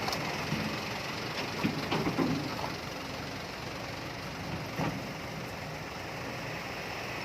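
Kobelco hydraulic excavator running, its diesel engine a steady drone, with a few short knocks about two seconds in and again near five seconds.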